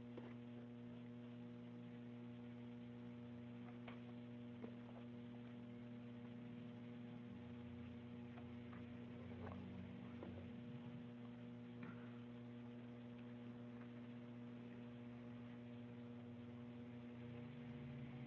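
Faint steady electrical hum, mains hum in the recording, with a few faint clicks now and then.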